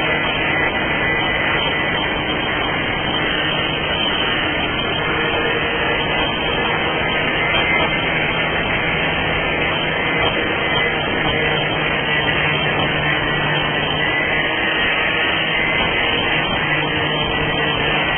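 Power sander running steadily against the pop-top's fibreglass, a continuous even whir with a faint steady hum.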